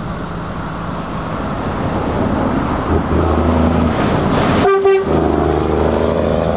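Heavy truck engine running, getting louder as it approaches, with one short horn toot about five seconds in.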